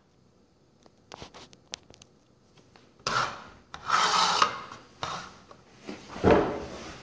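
A model car's display base being slid by hand across a wooden tabletop: a few light clicks, then two rubbing scrapes about three and four seconds in, and a thump a little after six seconds as it is set down.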